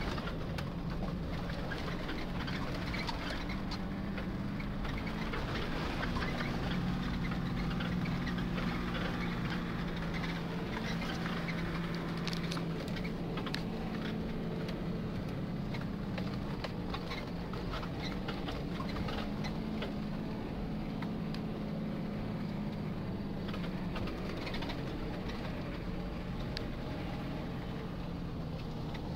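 Nissan Patrol 4x4's engine running steadily at low speed, heard from inside the cab, with scattered clicks and rattles as it rolls over a rough grassy track.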